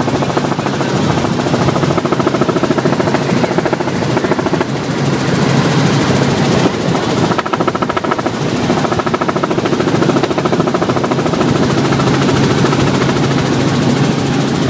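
Small Robinson helicopter in flight, heard from inside the cabin: a loud, fast, even rotor chop over a steady engine and gearbox hum.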